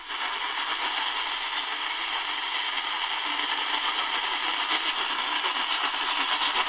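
Tecsun DR-920C portable radio's speaker giving out steady static and hiss, tuned to about 870 kHz on the medium-wave (AM) band. A weak, distant station lies buried in the noise.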